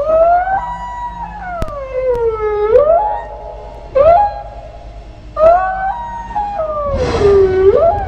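Recorded whale song: two long moaning calls that hold their pitch, then swoop low and rise again, with a short upswept call between them. A grainy, rasping sound overlaps the end of the second call.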